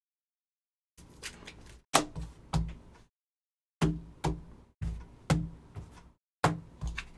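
Rigid plastic top-loader card holders being set down and tapped onto a stack of top loaders on a table: a run of sharp clicking knocks, starting about a second in, with a short pause around three seconds in.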